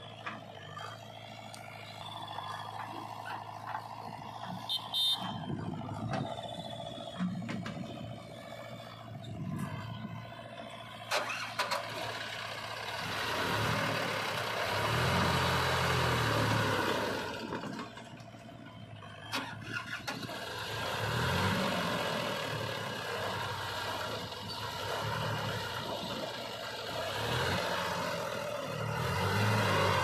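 Diesel engines of a JCB 3DX backhoe loader and a Sonalika DI 35 tractor running, with a bucket of soil tipped into the tractor trolley and a few sharp knocks. The tractor engine revs up in several swells as it pulls away with the loaded trolley.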